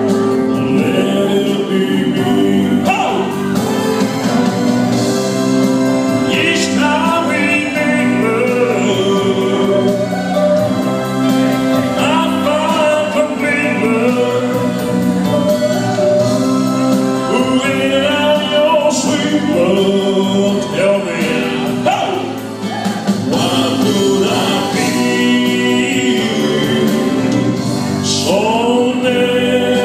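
A slow love-song ballad: a man singing into a microphone over a recorded backing track, with a choir of backing voices.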